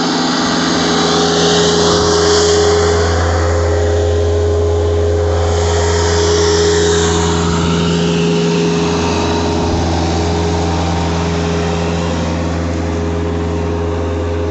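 Tractor engine running steadily while powering a backhoe attachment digging stumps, its sound swelling a little a couple of times as it works.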